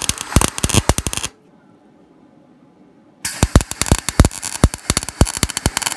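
MIG welder arc crackling and spitting as a steel patch is welded into a van's rusted sill channel, in two runs: the arc stops about a second in and strikes up again about two seconds later.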